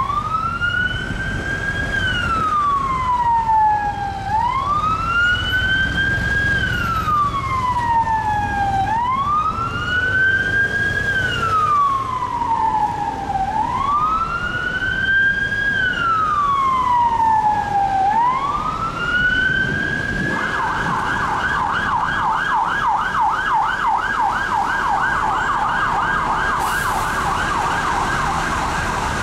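Police car siren on the wail, slow rising and falling sweeps of about four and a half seconds each, switching about twenty seconds in to a fast yelp. The siren is on a police Land Rover Discovery responding through traffic, with engine and road rumble underneath.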